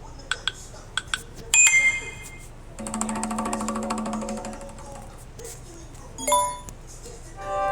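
A series of short electronic ringtone and notification sounds from a Samsung Galaxy Tab A9+: a few light ticks, a bright chime, a buzzy held tone about two seconds long, another short chime, and a fuller chime that starts near the end.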